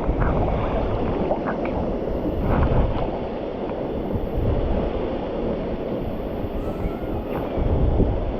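Steady rushing of a waterfall pouring into a swimming hole, with a few short splashes of water close by.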